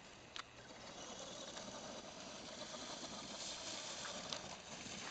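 Radio-controlled monster truck driving over rough dirt, heard as a faint, steady whir of its motor and tyres, with a sharp click about half a second in.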